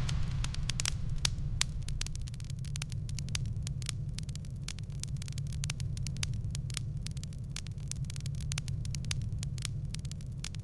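Fireplace fire crackling: irregular sharp pops and snaps, several a second and thickest in the first second or so, over a steady low rumble.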